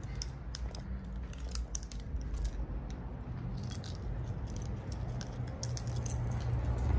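Scattered light clicks and rattles, irregularly spaced, over a low steady rumble.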